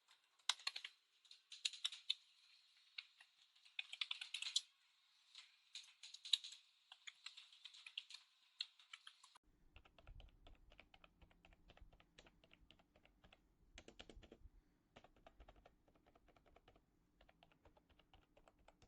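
Typing on the MOFII wireless vintage-style keyboard: a run of irregular keystroke clicks. After about nine seconds the clicks turn softer and duller, with a faint steady hum beneath them.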